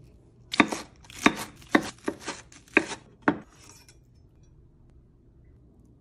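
Knife cutting through a crisp panko-crumbed fried cutlet on a wooden cutting board: about seven sharp, crunchy cuts in under three seconds.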